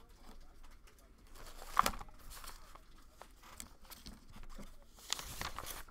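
Faint rustling and crinkling with scattered light clicks as card packs and wrappers are handled on a desk, with a louder rustle about two seconds in and another near the end.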